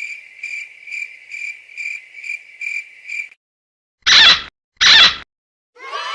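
Cricket chirping sound effect: a steady high chirp pulsing about twice a second, cutting off after about three seconds. Two loud, short bursts follow about a second apart.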